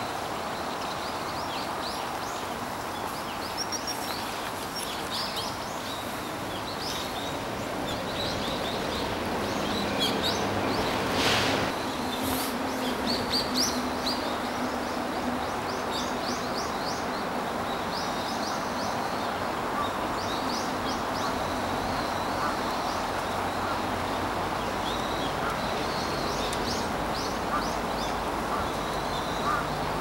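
Short, high bird chirps scattered throughout, over a steady low background rush. About eleven seconds in there is a brief, louder burst of noise.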